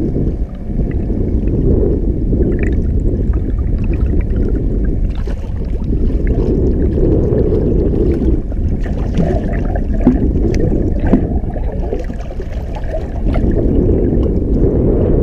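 Water heard through a camera held underwater: a steady, low, muffled rushing and gurgling, with faint scattered ticks.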